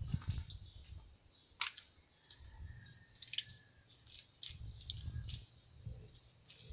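Close hand-handling sounds of food prep: a few crisp clicks and snaps as small items are picked and peeled by hand, with a plastic bag rustling and low bumps on the wooden table. Birds chirp faintly in the background.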